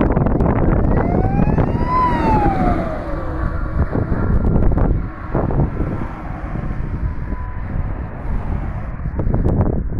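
Heavy fire engine's siren wailing, one sweep rising and then falling in pitch about two seconds in, then fading as the truck drives away. A loud low rumble of wind on the microphone runs underneath.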